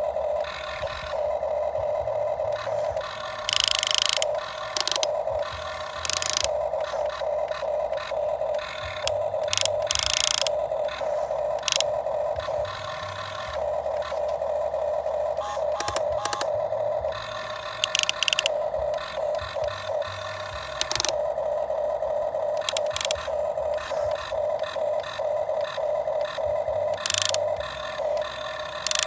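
RC model excavator's electric motors whining steadily, rising and falling in strength as the machine works, with frequent short scrapes and clicks as the bucket digs into sand.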